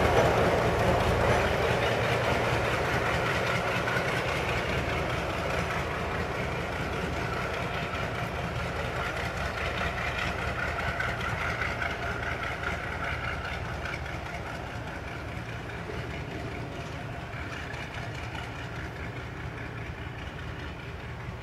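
Class 42 Warship diesel-hydraulic locomotive's engines running as it pulls slowly away, the sound steadily fading with distance.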